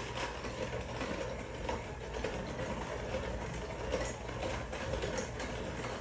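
Electric mixer running steadily, beating butter into sugar to cream it; the butter is still firm and slow to break up.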